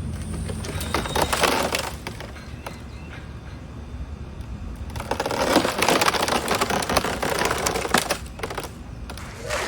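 Wood cracking and splintering in two rough stretches, about a second in and again from about five to nine seconds in.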